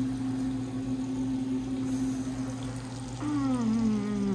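A steady low hum over the hiss of fish frying in oil. About three seconds in comes a falling 'mmm' of appreciation, hummed with the mouth closed while chewing a bite of fried fish.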